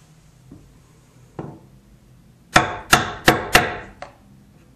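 A mallet striking a bench chisel to chop waste out of a hinge mortise in the edge of a wooden chest. There is a light tap about a second and a half in, then four sharp blows in quick succession and a lighter fifth.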